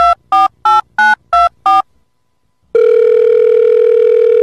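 Telephone keypad beeps, about three a second, each at a slightly different pitch, stopping after six beeps; after a short pause a long, steady telephone tone begins.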